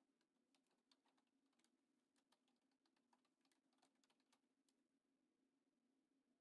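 Near silence, with very faint scattered clicks through the first four and a half seconds over a faint low hum.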